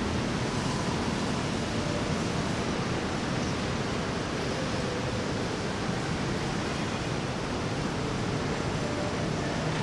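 Steady, even rushing noise with no separate sounds standing out.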